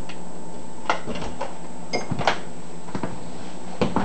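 Several light clicks and knocks, spread over a few seconds, over a steady background hum, as a battery charger is switched on to power an electrolysis cell.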